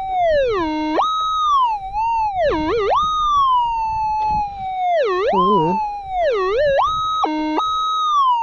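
Minelab GPZ 7000 gold detector's audio signal: the steady threshold tone swoops repeatedly down and up in pitch, several times, as the coil passes over a target. The detector is signalling a buried target, likely gold.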